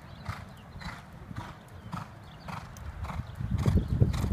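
Hoofbeats of a horse trotting on arena sand, an even beat about twice a second. Near the end the sound grows louder, with a low rumble, as the horse comes close.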